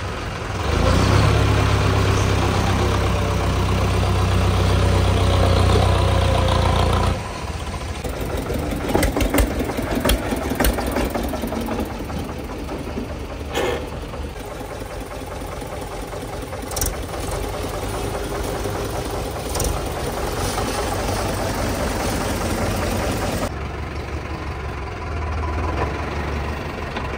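Tractor diesel engines running under heavy load. The first several seconds are loudest, with a deep, strong engine note, which then drops to a lower, steadier running sound broken by scattered knocks and clatter.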